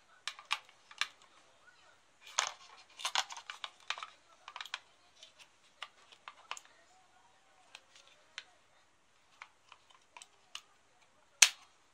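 Irregular clicks and clatters of an AA battery being fitted into and moved about in the slots of a YAZAWA MW01SV handheld battery checker, with one sharp, louder click near the end.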